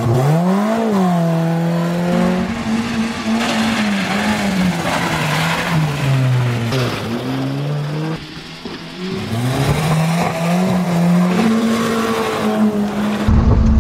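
Suzuki Swift hatchback's engine revving up and down again and again as it drives through mud, over a steady rush of tyres and spraying mud.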